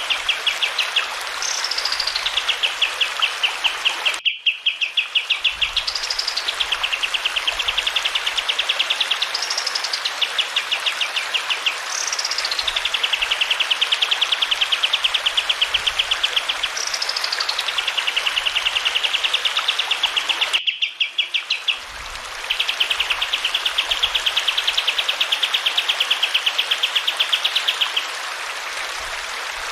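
Kapas tembak, a bulbul kept as a songbird, singing long, very fast rolling trills broken now and then by upward-swooping notes, over the steady rush of running water. The song stops abruptly twice, at about four seconds and about twenty-one seconds in, where the recording is cut.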